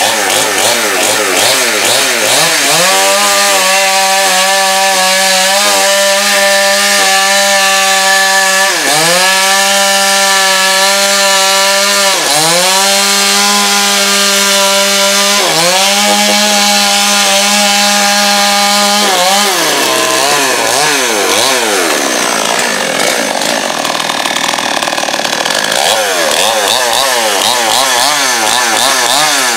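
A Chinese-made 52 cc petrol chainsaw ("Chain Saw 5200") cuts down through a stack of pine boards at full throttle. The engine note holds steady, dipping briefly three times. For the last several seconds the engine speed wavers up and down as the saw comes out of the cut.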